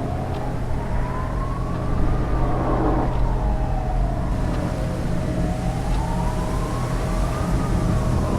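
Emergency vehicle siren wailing, slowly rising and falling in pitch, about twice, over a steady low rumble.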